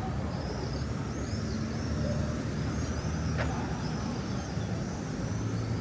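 Steady low rumble of a motor vehicle's engine running, with a run of short, high chirps over it and a single sharp click about three and a half seconds in.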